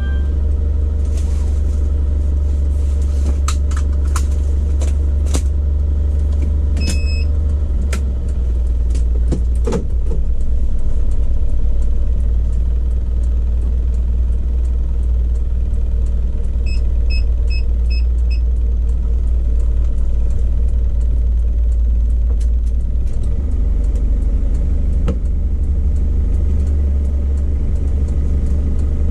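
Isuzu Crosswind diesel on a test drive after a differential carrier bearing replacement: a steady, loud low rumble of engine and road noise. A few scattered clicks, and a quick run of five short beeps about two-thirds of the way through.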